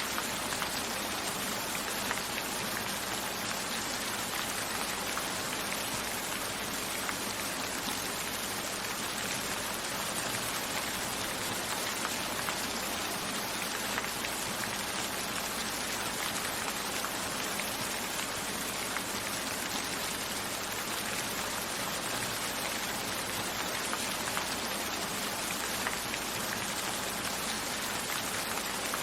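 Steady rain falling: an even hiss of many drops, with fine ticks of single drops showing through.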